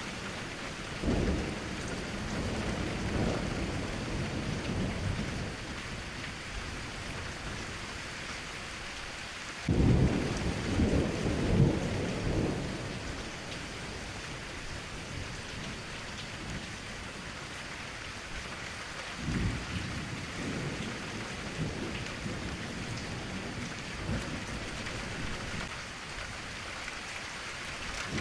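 Thunderstorm: steady heavy rain with rolling thunder rumbles, a short one about a second in, a loud sudden crack and long rumble about ten seconds in, and a softer roll near twenty seconds.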